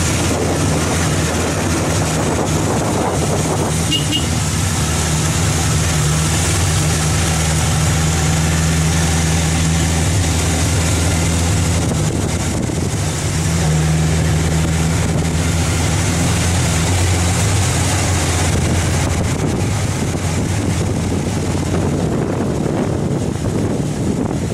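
Vehicle engine running steadily while driving, a low drone that grows stronger for a few seconds at a time, with wind rushing over the microphone.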